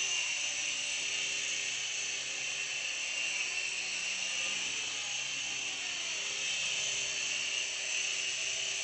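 Small toy RC helicopter in flight, its tiny electric motors and rotors giving a steady high-pitched whine.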